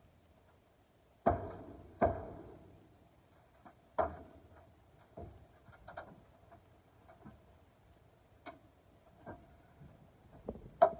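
Irregular knocks and bangs of wood and tools on the wooden frame and plywood panels of a chicken coop being dismantled: three loud knocks in the first few seconds, then lighter scattered knocks and clicks, with a sharp one near the end.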